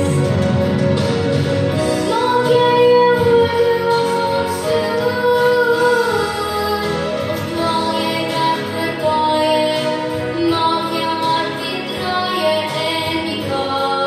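A woman singing an Afrikaans song over instrumental accompaniment, holding long, sliding notes.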